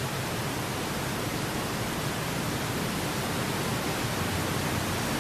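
Steady, even hiss of the diving arena's background noise, with no distinct sounds in it.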